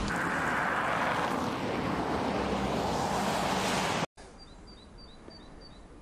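Steady outdoor street noise, an even hiss with a faint low hum, which cuts off abruptly about four seconds in. A much quieter outdoor background follows, with a quick run of about five faint high chirps.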